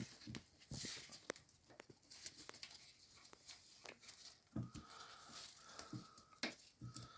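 Faint handling sounds of toilet syphon parts being fitted by hand: scattered small clicks and light knocks as a rubber piece is worked over a nut, a few a little louder in the second half.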